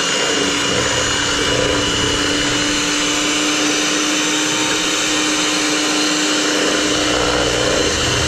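Electric hand mixer running steadily at a constant speed, its beaters whirring through a runny egg batter in a plastic bowl.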